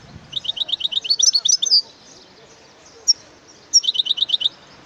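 European goldfinch singing: two quick runs of rapid, clipped repeated notes, each run a second or so long, with a single note between them.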